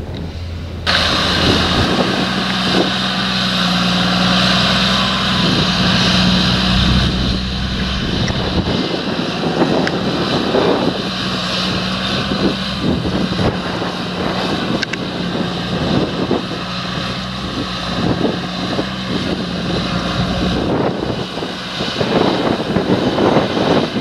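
Fendt 936 Vario tractor's six-cylinder diesel engine running steadily with an even hum. It gets abruptly louder about a second in and changes again near the end.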